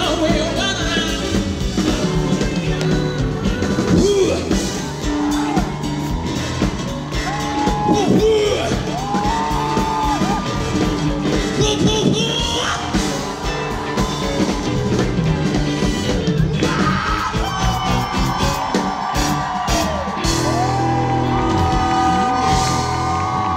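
Live band music playing loudly, with singing and yells over the drums and instruments. A long held note near the end stops as the song finishes.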